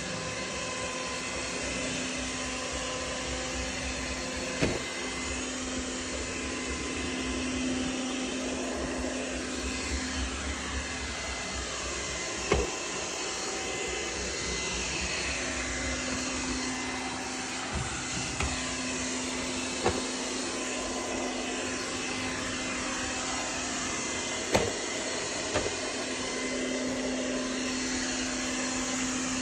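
ZCWA robot vacuum and mop combo running with a steady motor whir, with a few sharp knocks at irregular intervals.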